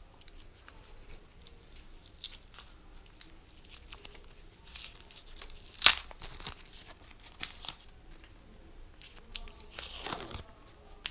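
Masking tape and paper being peeled off a plane part and crinkled in the hands: scattered short crackles, one sharp loud tear about six seconds in and a longer rip near the end.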